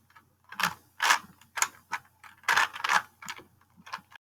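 A Rubik's Cube being twisted: bursts of sharp plastic clicks as its layers turn, coming irregularly about twice a second.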